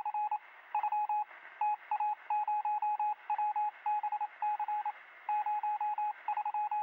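Morse code sound effect: a single beeping tone keyed on and off in a quick, irregular run of short and longer beeps, over a faint radio-like hiss.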